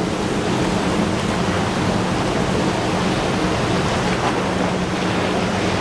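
Motorboat running fast past, its hull spray and wake rushing steadily, with a low steady engine hum underneath.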